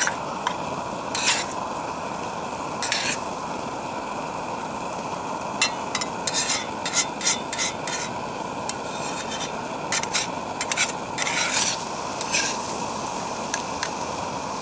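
Diced ham, chanterelle mushrooms and egg sizzling in a frying pan, with a spatula scraping and stirring against the pan in irregular strokes, most often in the middle stretch.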